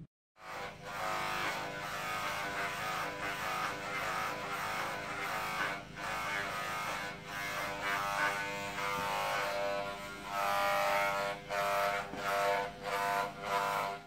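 Corded electric hair clippers buzzing steadily as they shave a dog's coat, with short dips in loudness every second or so.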